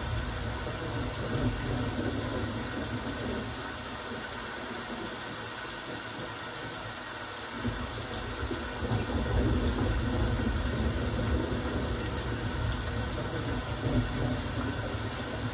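Steady rain, an even hiss of drops, over a low rumble that rises and falls and eases off for a couple of seconds near the middle.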